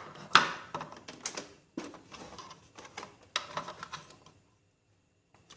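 Clicks and knocks of hard plastic printer parts being handled: a few sharp taps spread over about four seconds, stopping near the end.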